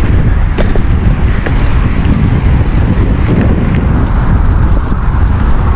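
Wind buffeting the microphone of a camera on a moving mountain bike, over the rumble of tyres on a dirt trail, with a few light knocks from the bike as it rolls over bumps.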